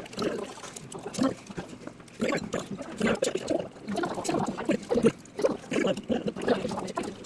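Close-up chewing and wet mouth sounds of someone eating, with light clicks of wooden chopsticks against a takeout container.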